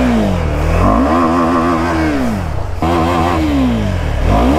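KTM 390 Adventure's single-cylinder engine revved hard and let fall back twice, rising again at the end, as the bike churns in deep mud and throws it up from the wheel.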